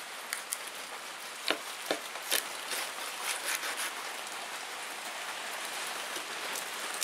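Steady hiss of falling rain. About a second and a half in, a few sharp cracks and then a run of crunches as a knife cuts through the charred, crisp pork rind.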